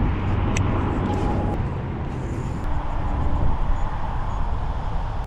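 Strong wind buffeting the microphone: a steady low rumble, with a few faint clicks over it.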